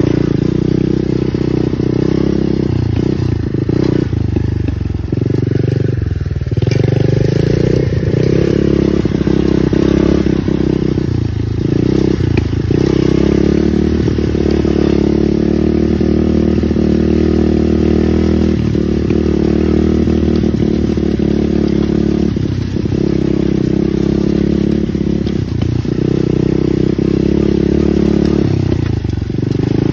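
Pit bike engine running hard while being ridden, the revs rising and falling several times as the throttle is opened and eased off.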